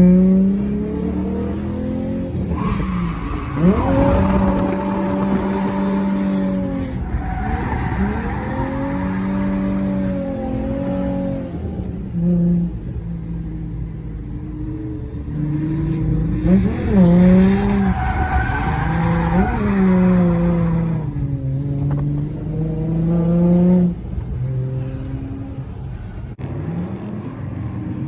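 A car drifting: its engine revs up and down over and over, and its tyres squeal loudly in two long stretches, a few seconds in and again past the middle.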